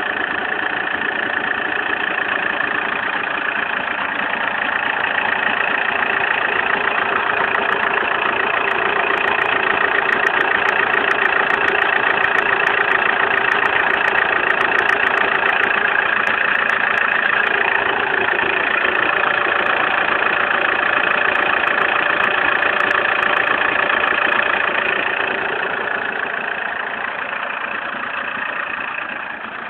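Opel Zafira engine running steadily at idle, a constant mechanical drone with a few held whining tones in it, easing off a little near the end.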